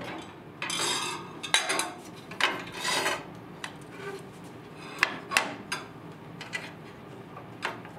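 An aluminium crosscut fence and angle gauge on a sliding table being moved and adjusted by hand: several scraping slides of metal in the first three seconds, then a few sharp clicks and knocks.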